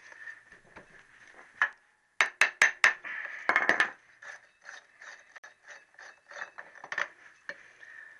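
Metal hand tool clicking and clinking on the slack gearbox sprocket nut of a Triumph T120R as it is undone. A quick run of about five sharp clicks comes about two seconds in, then a short clatter and scattered lighter clicks.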